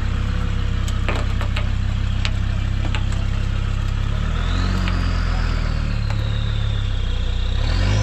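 Engine running steadily as a Land Rover Discovery is loaded up the ramps onto a car trailer. There are a few sharp clicks in the first three seconds, and a thin whine rises, dips and climbs again through the second half.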